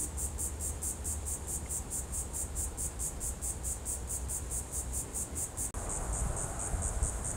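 Insects chirping outdoors in a rapid, even pulse, about five chirps a second, over a low rumble. A little before the end the pulses run together into a steadier trill.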